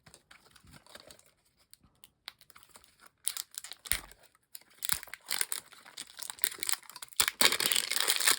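Plastic toy packaging being handled and forced: crinkling and rustling with scattered clicks and knocks, sparse at first, then busier and louder from about three seconds in as the package is squeezed and pulled at.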